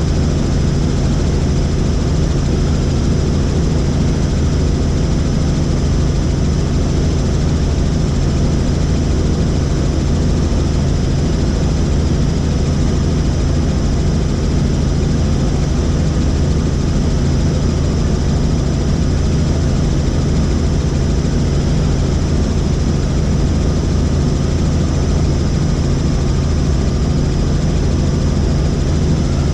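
Helicopter in flight: steady, loud engine and rotor noise with a deep hum.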